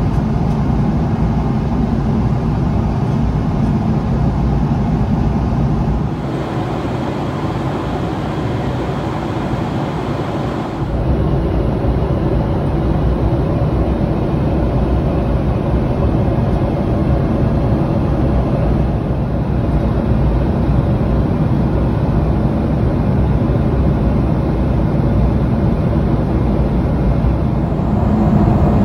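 Steady jet airliner cabin noise, the engine and air rush of a Boeing 777-300ER heard from inside. It changes abruptly about six seconds in and again about eleven seconds in, where the recording cuts between clips; the middle stretch is slightly quieter, with less deep rumble.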